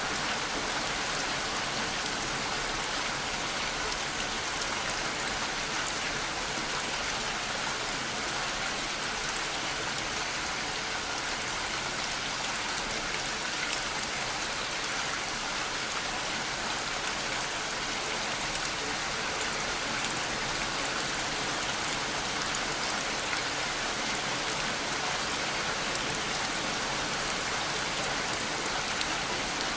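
Steady rain falling: an even hiss with faint, scattered drop ticks, constant in level throughout.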